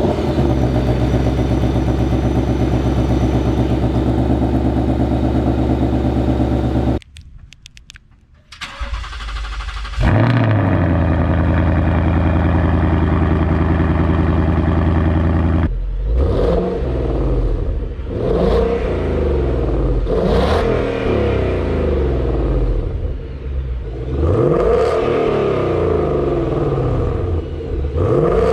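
Ford Mustang GT's 5.0 V8 with active exhaust idling steadily through the exhaust, cutting off about seven seconds in. It starts again with a loud flare about ten seconds in, settles to a steady idle, then is blipped in quick free revs about five times, each rising and falling back.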